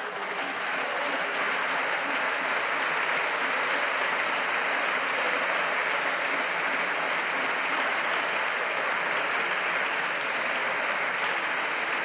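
Applause from a full parliamentary chamber of deputies: many hands clapping together, building up within the first second and then holding steady.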